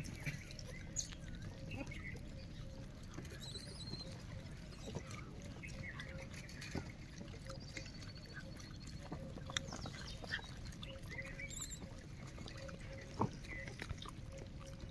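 Quiet outdoor ambience: small birds chirping now and then over a low steady background, with scattered light clicks and rustles.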